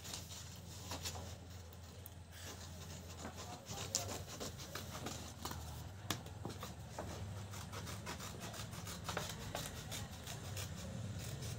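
Scissors snipping and scraping through a stiff sheet of chart paper, with the paper rustling: irregular crisp cuts.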